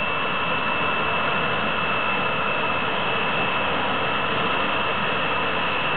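Gas turbine engine running at a steady pitch: a constant high whine over a dense rushing noise.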